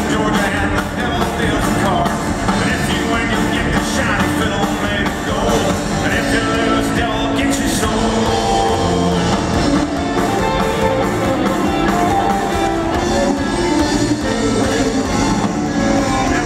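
A live country-rock band playing loud through a concert PA, with electric guitars over a steady drum beat and a man singing into a microphone.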